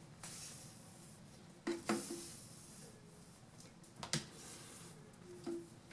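Hands handling an airbrush hose and its fittings: rustling and rubbing, with a few sharp clicks and knocks, two close together just under two seconds in, one about four seconds in and one near the end.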